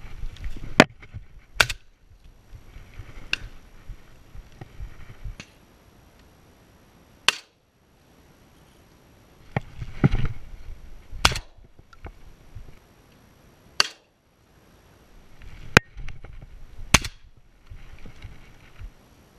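Shotgun shots, about seven at uneven intervals: two in quick succession near the start, several single shots through the middle and another close pair near the end, with rustling between them.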